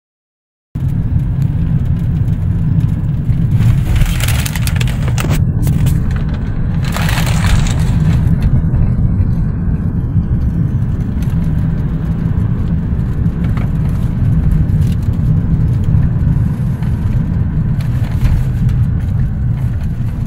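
Car cabin noise while driving: a loud, steady low rumble of road and engine noise that starts about a second in, with two brief rushes of hiss around four and seven seconds in.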